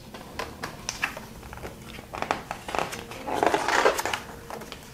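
Small clicks and taps of a hand on the pages of a hardcover picture book, then a paper page being turned with a rustle about three and a half seconds in.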